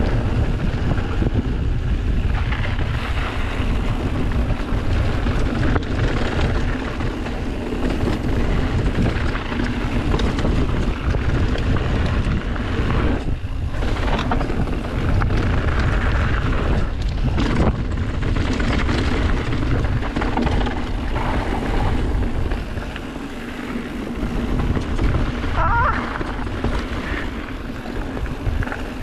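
Mountain bike rolling down a dirt trail: a steady rush of wind buffeting the action camera's microphone over the rumble and rattle of tyres and bike on rough ground. A brief high squeak comes near the end.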